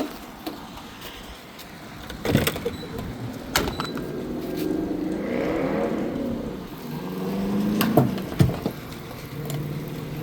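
A few sharp knocks and clunks over the sound of a vehicle that swells for a few seconds and then fades.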